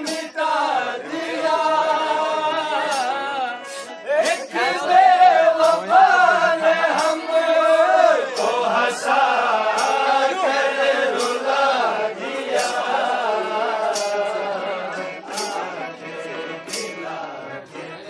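Men's voices singing a ghazal in a long, ornamented melodic line, with sharp percussive strikes about every second or so.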